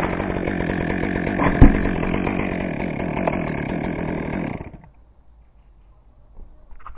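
Chainsaw engine running steadily, with one sharp knock about a second and a half in; the saw stops abruptly near five seconds in.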